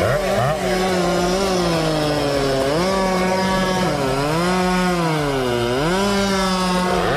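Chainsaw cutting through wood: its engine runs at high revs, and the pitch sags under load and recovers several times as the chain bites.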